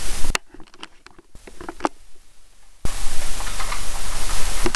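Steady hiss and handling noise from a handheld camera's microphone. About a third of a second in it drops abruptly to a much quieter stretch with a few faint clicks, and the hiss returns suddenly near the three-second mark.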